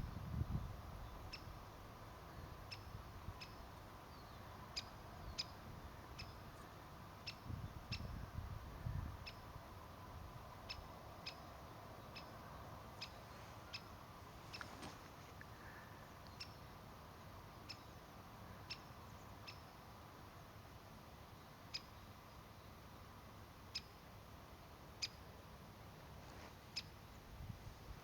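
Woodpecker giving short, sharp, high calls, singly or in quick pairs, at irregular gaps of about a second, with faint low rumbles now and then.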